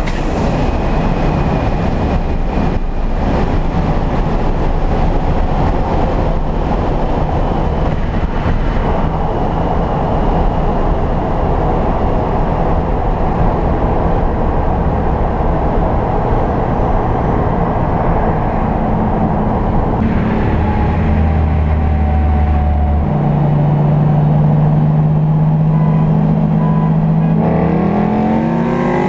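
Turbocharged VW VR6 engine and road noise from inside the car's cabin, running hard at highway speed. About two-thirds of the way through it settles into a steadier, lower drone, and near the end it climbs in pitch again.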